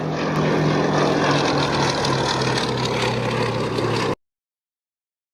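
Piston-engined propeller aircraft flying past, a steady engine drone with propeller noise that cuts off suddenly about four seconds in.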